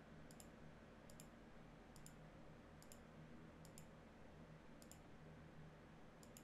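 Faint computer mouse clicks, each a quick press-and-release pair, about one a second, over a low steady hum.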